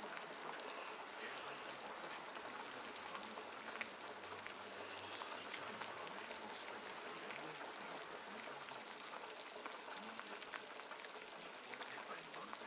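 Broth boiling in a pot on a gas stove: steady bubbling with many small pops.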